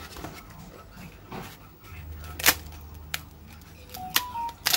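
Crisp, thin-shelled pancakes being broken by hand, giving several sharp cracking snaps. The loudest comes about halfway through, with more quick snaps near the end.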